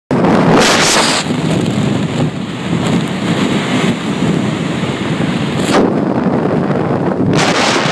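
Typhoon storm-force wind blasting and buffeting the microphone, a loud, continuous rush that surges in gusts about half a second in and again near the end.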